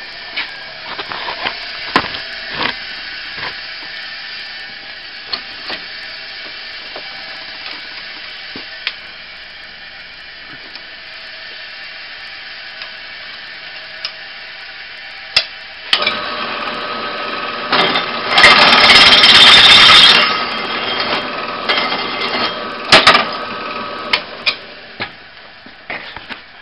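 Drill press running with a freshly sharpened twist bit drilling through a steel square tube. The motor runs steadily at first with scattered clicks. The cutting grows louder past the halfway point, is loudest for about two seconds, then eases off with a few sharp clicks. The resharpened bit is cutting well.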